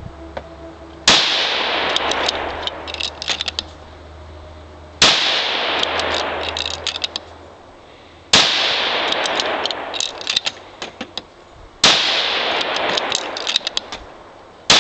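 6BRX benchrest rifle firing five shots about three and a half seconds apart, the last right at the end. Each report rings on for a couple of seconds. Between shots there are light metallic clicks of the bolt being worked to reload.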